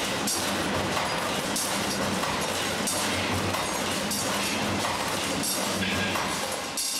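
Wire bending machine running through its bending cycle: a steady motor hum with a rush of noise repeating about every second and a half as the bending head works the wire.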